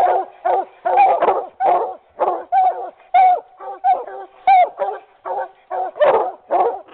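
Bluetick and redbone coonhounds barking treed, short barks at about three a second without a break: the sign that they have a raccoon up the tree.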